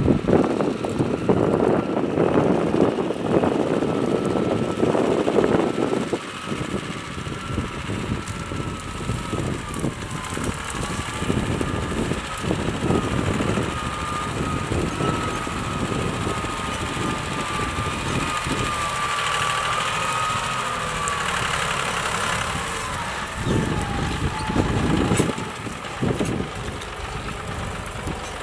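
John Deere tractor's diesel engine running steadily under load as it pulls a disc plough through dry brush, with a thin wavering whine over it for much of the time. The sound swells in the first few seconds and again briefly near the end.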